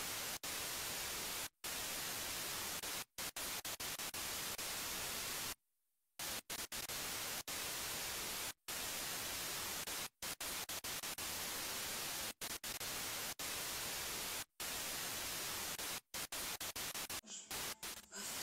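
Steady hiss of static, cut off again and again by abrupt dropouts to silence at irregular moments, the longest lasting about half a second around six seconds in; near the end the hiss stutters more rapidly.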